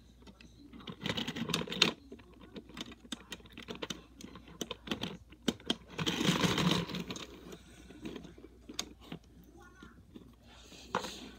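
Plastic LEGO bricks clicking and rattling as pieces are handled and pressed onto a model locomotive, in scattered sharp clicks with two busier bouts, about a second in and around six to seven seconds in.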